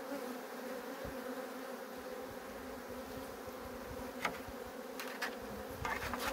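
Honeybees of an opened Caucasian-bee colony buzzing steadily in a dense hum as comb frames are lifted out of the wooden hive. A few light knocks of wood on wood come near the end.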